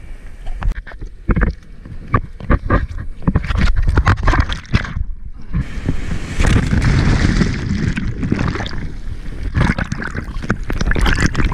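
Seawater splashing and sloshing against a handheld action camera at the surface, with many sharp slaps of water and wind on the microphone. About five seconds in the sound briefly goes dull, then a loud rush of breaking whitewater follows for a couple of seconds.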